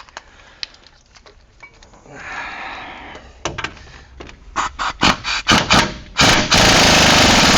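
Impact wrench driving the new wheel hub assembly's mounting bolts home on a Ram 1500: first a few short bursts, then from about two thirds of the way in one long continuous hammering run as the bolt is run tight.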